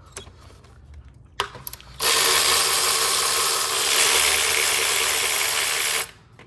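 A ratchet wrench clicking rapidly and continuously for about four seconds, undoing a fastener on the engine's EGR pipe, then stopping suddenly. A few light clicks come before it.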